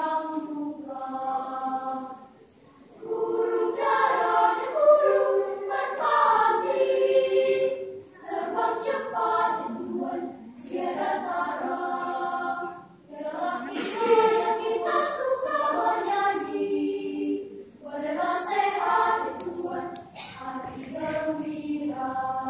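Primary-school children's choir singing, in sung phrases with short breaks between them.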